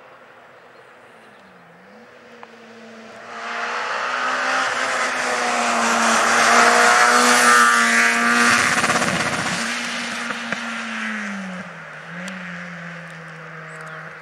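Rally car passing at speed on a closed stage, its engine revving hard. It is faint at first, grows loud about halfway through as it goes by, then fades as it drives away. The pitch dips briefly near the end as it changes gear or lifts for a bend.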